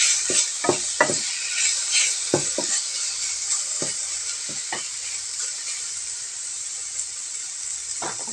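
Mushrooms sizzling in oil in a non-stick frying pan while a wooden spatula stirs them, scraping and knocking against the pan about ten times in the first five seconds. After that only the steady sizzle continues.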